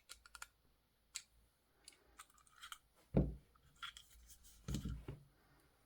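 Small plastic clicks and scrapes from handling a Fiat remote key fob as its case is worked open, with two dull thumps about three and five seconds in.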